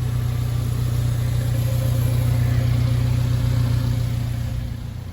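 1999 Subaru Sambar mini truck's 660 cc four-cylinder engine idling with a steady low hum, fading a little near the end.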